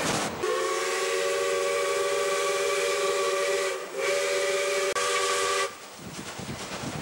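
Steam locomotive's chime whistle sounding two long blasts of several notes at once, the first about three seconds, then after a brief break a shorter one that cuts off sharply. Rushing train and wind noise runs before and after the blasts.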